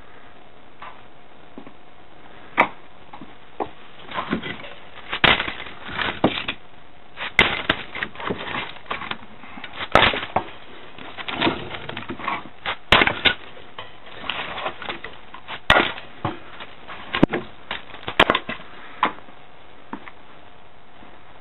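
Split firewood logs being taken from a stacked woodpile and dropped into a wicker basket: a string of irregular wooden knocks and clatters, starting a couple of seconds in and stopping a couple of seconds before the end.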